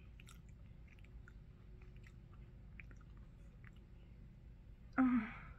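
Person chewing jelly beans: faint, scattered soft clicks and smacks of the mouth. Near the end comes a short loud burst of voice.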